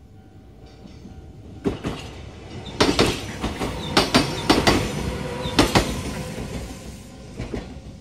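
Kintetsu two-car electric train passing over a level crossing, its wheels knocking in a quick series of sharp clacks over the rail joints and crossing, loudest from about three to six seconds in. The crossing's faint warning tone sounds at the start.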